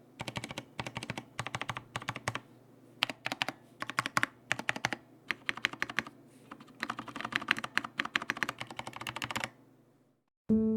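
Typing on an mStone Groove F SF full-size keyboard with stock, unlubed Cherry MX Red linear switches and PBT Cherry-profile keycaps, in quick runs of keystrokes with short pauses between. The typing stops near the end, and soft piano music comes in at the very end.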